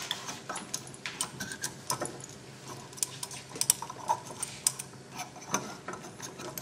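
Irregular light clicks and taps of metal being handled: the aluminium body of a Harvard Impactor air sampler and its small brass fitting, worked by hand as the sampler is closed up.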